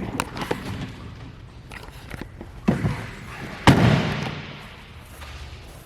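A jet ski's storage hatch lid being handled, giving a few knocks and then a loud slam about two-thirds of the way in that rings on briefly as it shuts.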